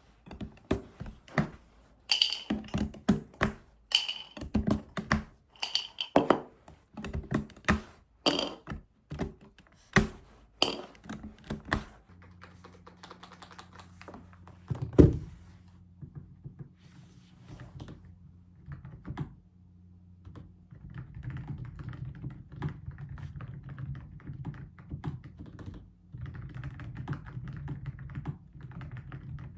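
Typing on a computer keyboard. It starts as slow, separate, loud keystrokes. About halfway through a low steady hum comes in, there is a single heavy thump, and near the end the keys go into fast continuous typing.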